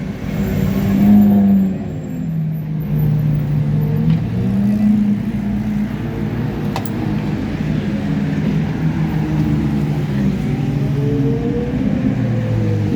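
A convoy of Ferrari sports cars driving slowly past, several engines running together at low revs, their pitch rising and falling with light throttle. The loudest pass comes about a second in.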